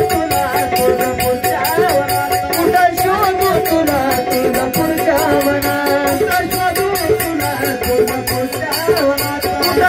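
Marathi devotional folk music: a winding melodic line over a fast, even beat of rattling percussion.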